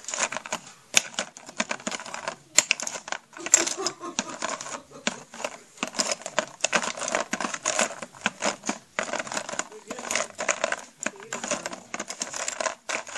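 Small plastic toys clattering and rattling in a tray as they are stirred: quick, irregular clicks and knocks throughout.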